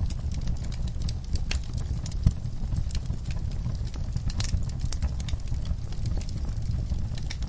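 Wood fire crackling in an outdoor firepit: irregular sharp pops and snaps over a steady low rumble, with one louder pop a little over two seconds in.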